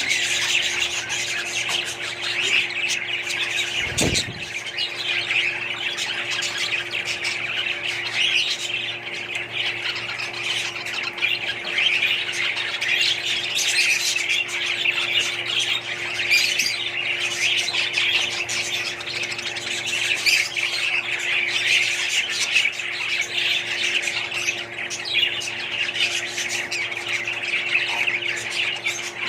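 Many small parrots chattering and squawking together in a dense, unbroken din, over a steady low hum, with one dull thump about four seconds in.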